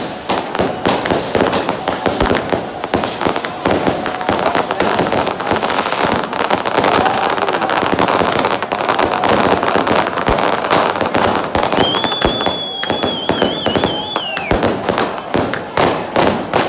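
Firecrackers going off in a dense, continuous string of sharp cracks, many a second. Near the end a high whistle holds with a wavering pitch for about two and a half seconds, then falls away.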